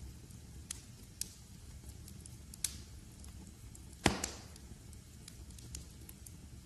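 Wood fire crackling in a fireplace: a steady low rumble of flames with scattered sharp pops, the loudest a crack about four seconds in.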